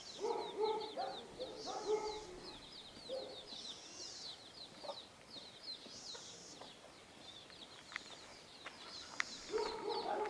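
Chicks peeping in a fast, continuous run of short high notes, while an adult chicken clucks in lower notes during the first few seconds and again near the end. A few sharp clicks come about eight to nine seconds in.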